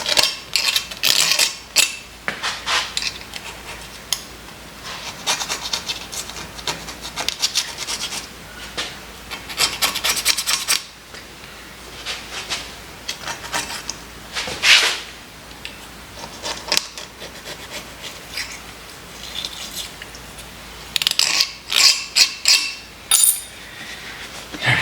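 Hand scraping on the metal of a Kurt milling vise: irregular runs of short, sharp strokes clearing crusty grime out of the vise so a part can be removed.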